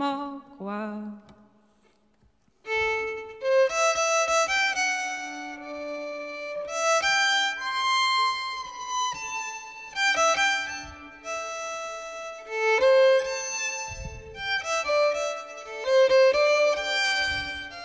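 A woman's voice finishes a sung line, a short pause follows, and then a fiddle comes in. It plays a quick, note-changing central Polish traditional melody over a steady lower held note.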